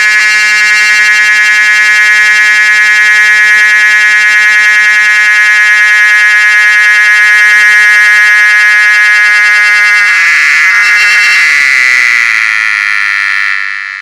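Cicada singing close by: a loud, steady buzzing drone. About ten seconds in it shifts to a higher, wavering tone, then fades out at the very end.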